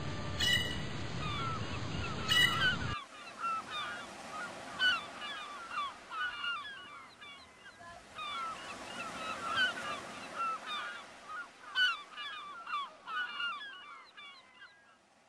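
Music with sustained notes for the first three seconds, cutting off abruptly, then a flock of birds giving many short, overlapping calls that fade out near the end.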